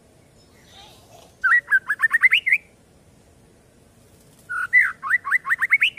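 White-rumped shama (murai batu) calling: two short phrases of quick rising notes, each run speeding up and climbing higher in pitch, about three seconds apart.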